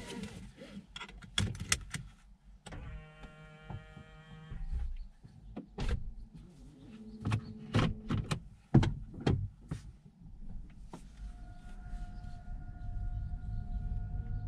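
Inside a parked car being readied to drive: a string of sharp clicks and knocks, a steady electric whine for about two seconds near the three-second mark, and from about eleven seconds a steady hum over a low rumble as the car powers on.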